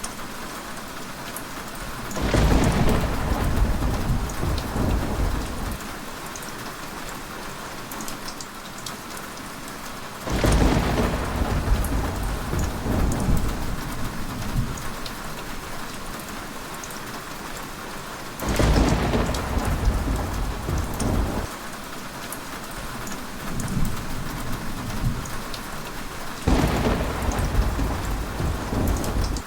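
Steady heavy rain with four rolls of thunder, each lasting a few seconds, coming about eight seconds apart.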